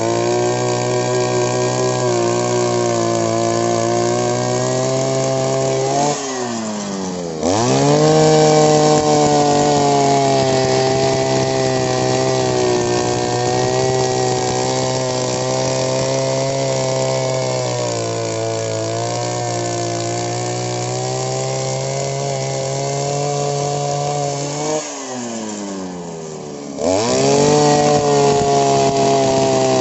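Earth auger's small engine running at high revs. About six seconds in, and again near the end, the revs drop and the pitch sinks for a second or two before it revs sharply back up.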